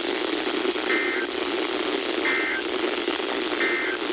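Emergency Alert System end-of-message data bursts over weather radio: three short, identical two-tone chirps about a second and a half apart, over a steady radio hiss. They signal the end of the alert.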